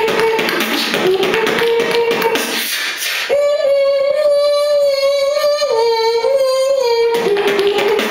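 Human beatboxing: a fast beat of mouth-made drum sounds with a hummed melody over it, broken about three seconds in by a held pitched vocal tone without the beat, which steps down in pitch partway through. The beat comes back near the end.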